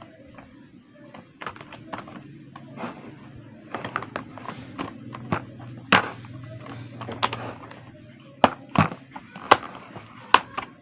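Hard plastic parts of a Bubble Pong bubble toy being handled and fitted together: irregular clicks and knocks, with several sharper snaps near the end.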